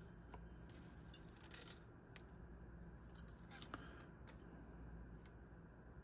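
Faint, scattered ticks and crinkles of adhesive copper foil tape being handled, folded and pressed onto the edge of a glass bevel.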